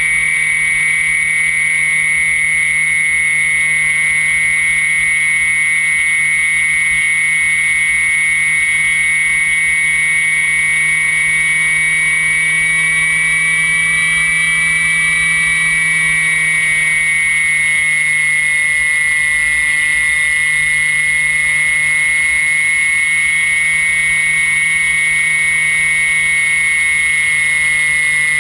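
Brushless electric motor of a HobbyKing Phoenix 2000 motor glider running steadily in flight. It makes a high, steady whine that rises slightly in pitch about halfway through and then eases back, over a rush of air past the plane.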